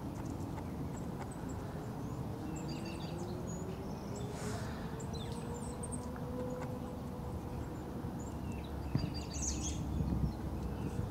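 Small birds giving scattered high, thin chirps over a low, steady outdoor rumble. A faint hum rises slowly in pitch through the middle.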